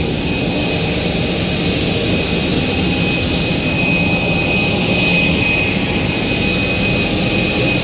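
Jet airliner engines running steadily: a constant high turbine whine over a low rumble.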